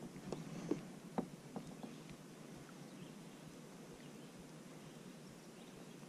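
A handful of light clicks and knocks in the first two seconds as a baitcasting rod and reel are handled in a plastic kayak, then faint, steady outdoor background.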